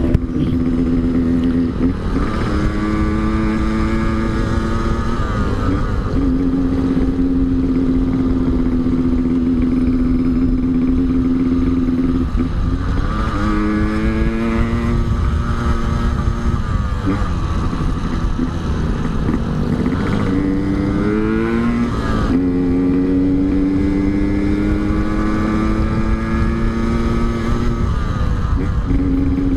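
Yamaha RX-King's two-stroke single-cylinder engine running under way through an aftermarket Altec C20 exhaust, held at steady revs with several gear changes where the pitch drops and climbs again. Wind rumble on the microphone underneath.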